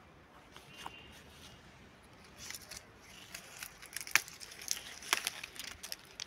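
Apple-tree leaves and twigs rustling and crackling as a hand pulls through the branches picking apples. A run of sharp snaps and crackles starts about two seconds in and is loudest a little past the middle.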